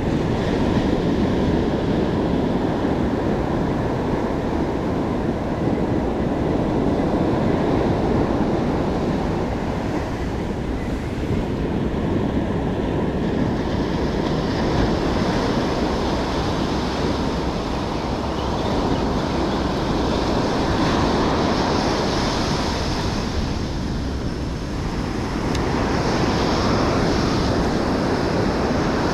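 Ocean surf breaking and washing up the beach, a steady rush that swells and eases every few seconds, with wind buffeting the microphone.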